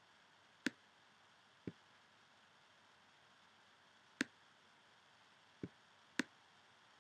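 Computer mouse button clicks over quiet room tone: five short, isolated clicks. Three are louder and crisper (about a second in, at about four seconds, and just after six), and two softer, duller ones fall between them.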